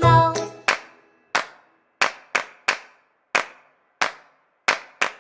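A toy's tinkly children's melody ends just after the start, followed by a string of sharp single clicks, about two a second at uneven spacing, each with a short fading tail.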